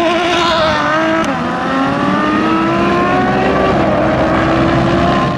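Ferrari F12tdf and McLaren Senna accelerating hard away from a standing start, engines at full throttle with the pitch climbing through the gears. A sharp drop in pitch about a second in marks an upshift, then the engine note climbs slowly again as the cars pull away down the strip.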